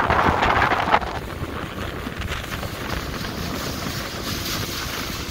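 Speedboat under way: wind buffeting the microphone over the rush of water along the hull. The rush is louder for about the first second, then evens out.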